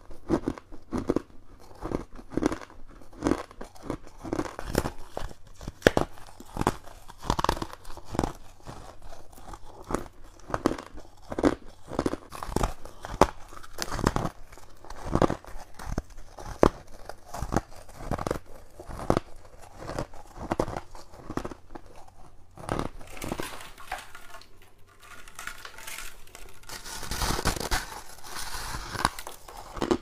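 Bites into a packed ball of freezer frost: a quick run of crisp, crumpling crunches, about two a second. Near the end there is a denser stretch of crunching.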